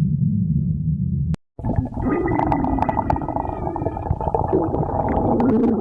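Human stomach growling: a low rumble that breaks off abruptly about a second and a half in, then a longer gurgle with tones sliding up and down in pitch.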